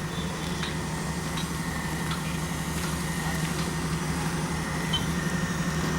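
An engine running steadily with a low, even drone, with a few faint ticks over it.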